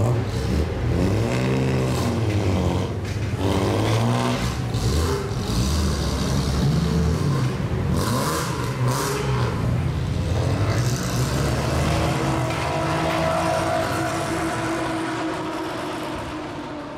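Classic Japanese cars with loud modified exhausts being revved as they pull away one after another, the engine notes rising and falling over a constant low engine rumble.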